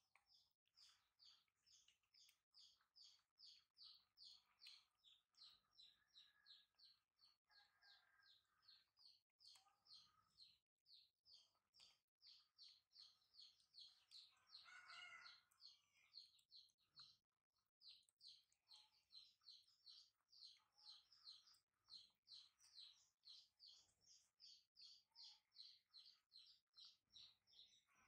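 Faint, steady run of high chirps, about three or four a second, with a louder, lower call about halfway through and another right at the end.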